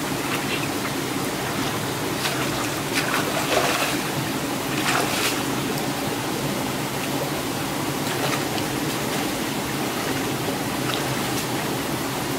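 Shallow rocky stream flowing and trickling steadily over stones, with a few splashes between about two and five seconds in as a person wades through the water.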